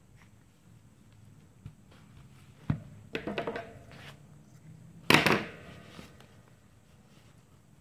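Craft materials handled on a tabletop: a sharp knock, a short spell of rustling and clicking, then the loudest sound, a clatter with a brief metallic ring, as a pair of steel scissors is put down on the table.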